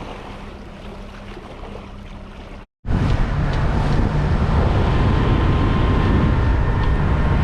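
Fishing boat running under outboard power: a steady engine hum with wind and water noise. About three seconds in it becomes much louder, with heavy wind rushing on the microphone as the boat runs at speed.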